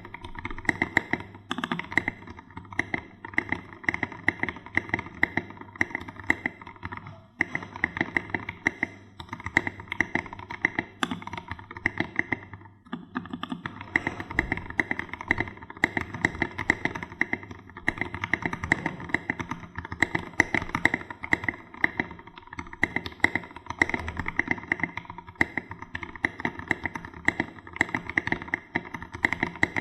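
Fast, continuous typing on a Keydous NJ68 mechanical keyboard with a brass plate, lubed and modded Gateron Black Ink v2 linear switches and foam-damped case, its keystrokes a dense stream of clacks with short breaks a little after 7 seconds and near 13 seconds.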